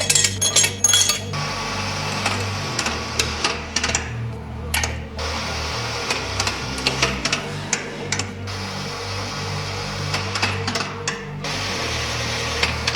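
Background music with a stepping bass line, mixed with scattered short metallic clicks and ticks.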